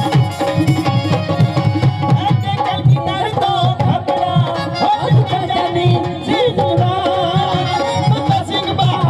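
Live Punjabi folk music through a PA: a fast dhol drum beat under a sustained keyboard melody, with a man singing into the microphone from about three seconds in.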